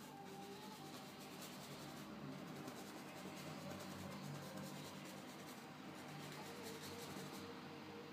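Faint scratchy rubbing of a fan brush's bristles worked over canvas, blending and softening a fresh umber glaze.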